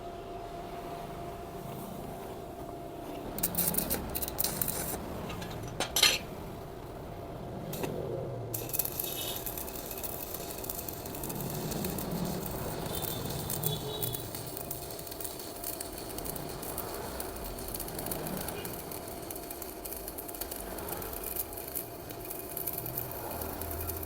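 Stick-welding arc from a Sekko MIG 250 multifunction inverter welder in MMA mode, burning a 3.2 mm electrode at about 210 A on 5–6 mm steel. A few short crackles and a sharp click as the arc is struck between about three and six seconds in, then from about eight seconds a steady crackling sizzle of the running arc. The arc catches readily.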